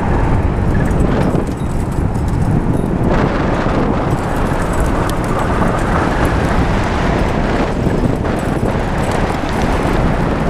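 Open-cockpit tube-frame car driving hard through turns: a loud, steady rush of wind and road noise with no clear engine note.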